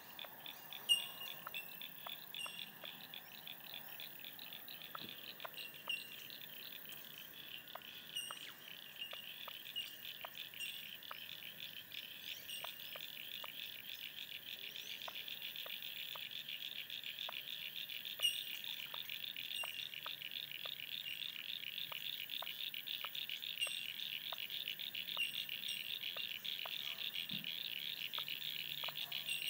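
A steady, high, fast-pulsing chorus of small calling animals, with short high chirps scattered through it and faint ticks about once a second.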